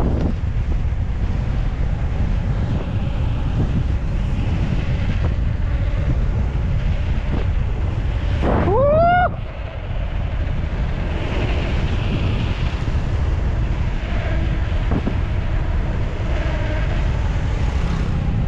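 Wind buffeting the action camera's microphone while riding a bicycle, a steady low rumble. About halfway through, a short cry rises in pitch.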